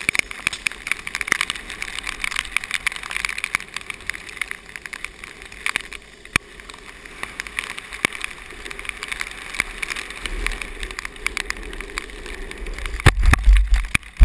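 Longboard wheels rolling fast over wet, rough pavement, a dense rattle of small clicks. Heavy wind buffets the microphone in the last few seconds.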